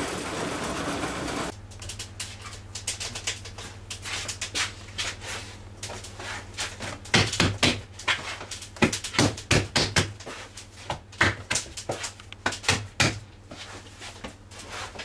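A flour mill running for the first second and a half. It gives way to repeated, irregular slaps and thumps of a large mass of bread dough being kneaded and worked in a floured trough, over a low steady hum.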